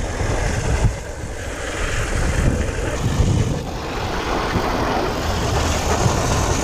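Wind buffeting the microphone and rolling noise while a BMX bike is ridden.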